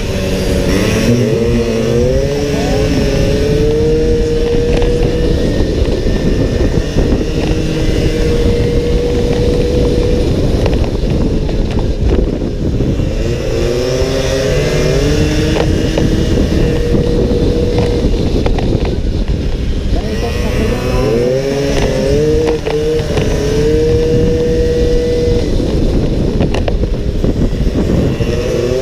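Onboard sound of a small racing scooter's engine: its note climbs as it accelerates out of the bends and then holds a steady high pitch, three times over, under a constant rush of wind and rumble.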